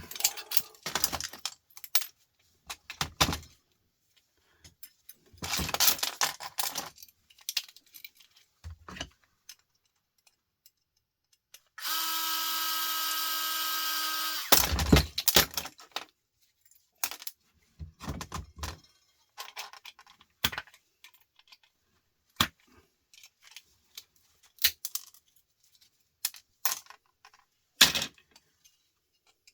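Scattered clicks, taps and knocks of a plastic-and-brass plug adapter being worked apart with hand tools. Near the middle, a small power tool runs with a steady whine for about two and a half seconds.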